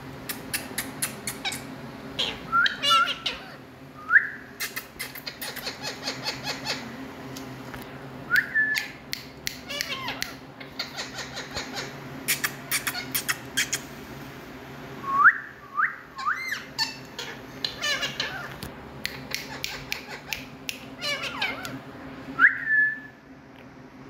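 Indian ringneck parakeets calling: short upward-sweeping whistles and squawks, again and again, between runs of rapid clicking chatter.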